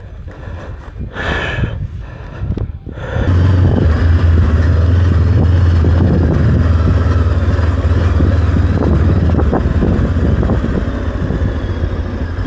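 Adventure motorcycle being ridden at a steady pace on a dirt track: a steady low engine note with wind noise on the microphone. It comes in abruptly and loud about three seconds in, after a quieter stretch with a few short sounds.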